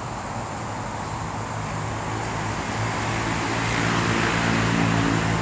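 A motor vehicle on the road passing close by: engine hum and tyre noise growing louder over the last few seconds, loudest near the end.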